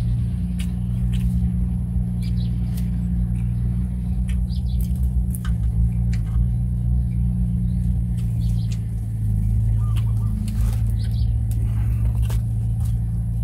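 A steady low mechanical hum, like an engine or motor running nearby, with scattered small clicks and rustles of hands tearing and wrapping leafy greens and of chewing.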